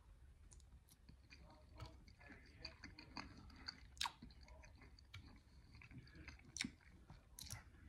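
Ice cube being crunched between the teeth and chewed: faint, irregular sharp crunches, the loudest about four seconds in and twice more near the end.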